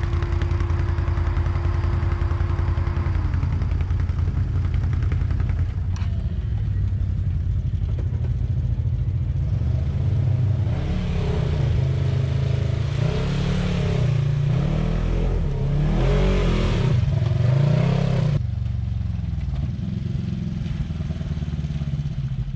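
Polaris RZR 1000 side-by-side's engine running steadily, then from about halfway revving up and down repeatedly for several seconds as it works through sand and mud, before dropping away abruptly.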